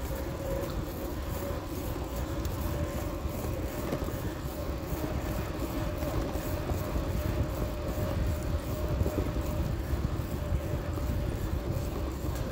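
Bicycle rolling along a paved path, picked up by a phone mounted on its handlebar: steady tyre rumble and road vibration with a constant hum.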